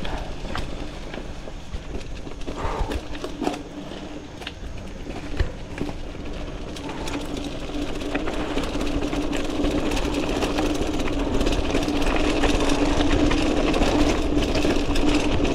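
Mountain bike rolling along a dirt and gravel trail: tyre noise and scattered clicks and rattles over bumps, with a steady hum that grows louder from about halfway through as the ride gets faster or rougher.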